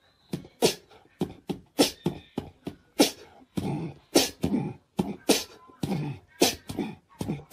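A person's voice in quick, sharp, breathy bursts, two to three a second, over and over.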